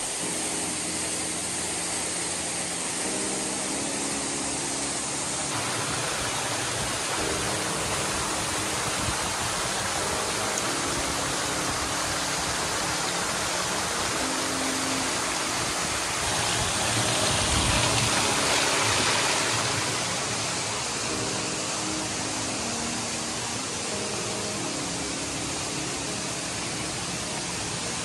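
Waterfall pouring into a stone-rimmed plunge pool: a steady rush of falling and splashing water, swelling louder for a few seconds a little past the middle.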